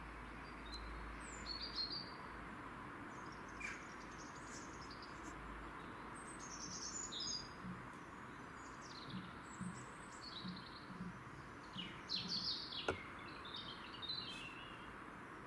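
Small birds chirping and twittering in short scattered calls over a steady background hiss, with a single sharp click about thirteen seconds in.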